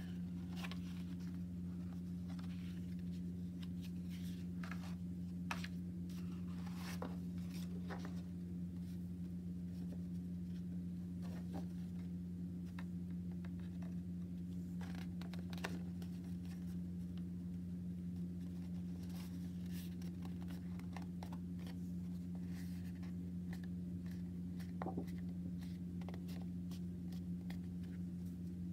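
Sheet of paper being handled and creased by hand into accordion folds: scattered short rustles and crackles, over a steady low hum.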